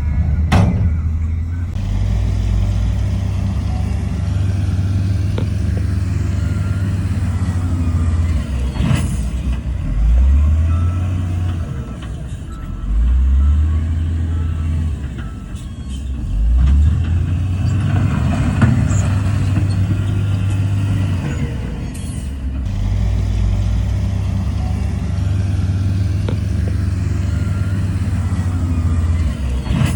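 Heavy diesel engine of earthmoving machinery running under load, revving up in pitch several times, with a few sharp knocks.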